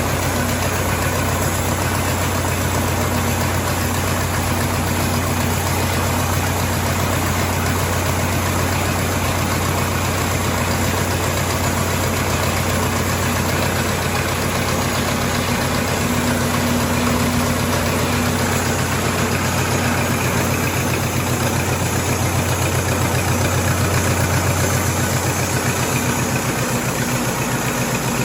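Sawmill engine running steadily, its low note shifting slightly near the end.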